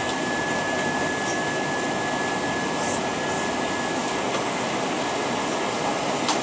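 Steady engine and airflow noise heard from a window seat inside an Airbus A320 cabin, its engines IAE V2527-A5 turbofans. A thin steady whine runs along with it and fades out a little past the middle.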